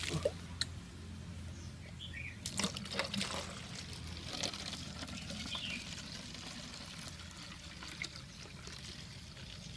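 Water being poured into bottles to fill them for a photosynthetic bacteria culture.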